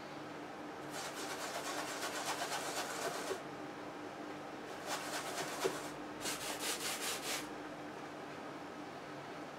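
Wide flat brush scrubbing oil paint across a stretched canvas in three bouts of quick back-and-forth strokes, the first lasting about two seconds.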